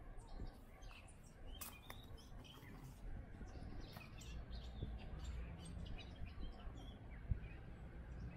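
Small birds chirping and calling in short, scattered notes over a low, steady rumble, with a single low thump near the end.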